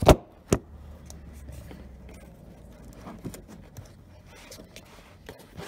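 Handling noise from working two coaxial cable connectors together by hand: two sharp knocks about half a second apart at the start, then faint rustling and small clicks.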